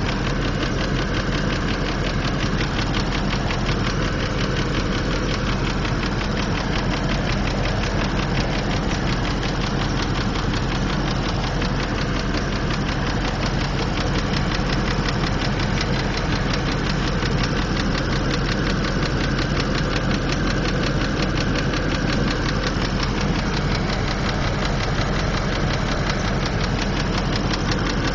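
2003 Land Rover Discovery II engine running at a steady idle with a rapid, even ticking. The owner suspects the lifters or an exhaust leak at the headers or manifold.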